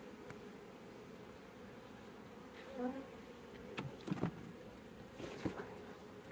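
Honey bees buzzing steadily around an open hive, with one bee briefly passing close near the middle. A few light knocks and clicks come about four and five and a half seconds in.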